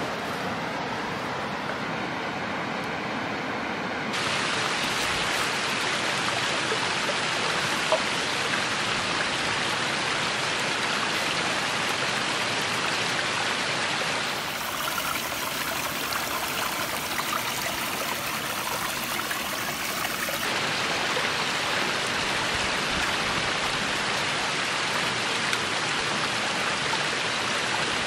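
Small shallow stream running over rocks: a steady rush of flowing water that shifts in tone a few times.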